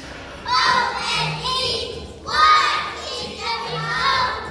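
A group of young children singing together in unison, starting about half a second in, in two long phrases.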